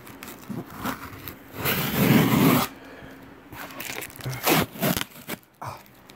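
A cardboard shipping box being handled and pulled open: scraping and crinkling of cardboard, packing tape and plastic wrap. The loudest part is a long rasping scrape about two seconds in, followed by a few sharp clicks and knocks.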